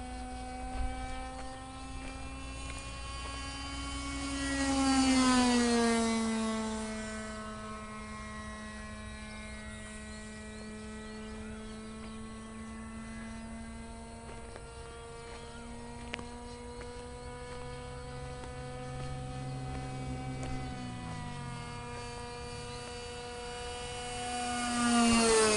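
Radio-controlled model airplane's .46-size glow engine running at high revs in flight. It makes two low passes, about five seconds in and near the end, each getting louder and then dropping in pitch as the plane goes by.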